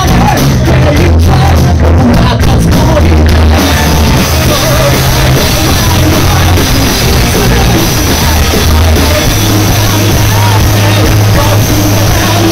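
A live rock band playing loud on a club stage: electric guitar, bass guitar and a drum kit, with a vocalist singing into a microphone. The sound gets fuller and brighter about three and a half seconds in.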